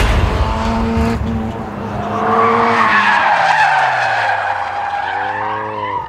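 Mazda RX-8's rotary engine and tyres in a drift: the engine note holds, then drops away while the tyres squeal through the slide. A short rev rises and falls near the end.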